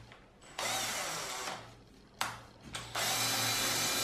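Hand-held power drill with a twist bit boring into a plywood shelf board. It runs for about a second, gives two short trigger pulses, then drills steadily from about three seconds in.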